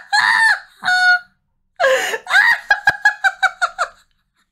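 A woman's high-pitched, squealing laughter: two short shrieks, then a quick run of rapid high cackles in the second half.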